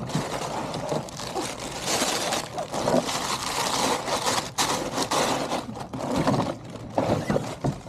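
A snowboard being pulled out of its long cardboard shipping box, scraping and rustling against the cardboard and packing, with a few sharp knocks along the way.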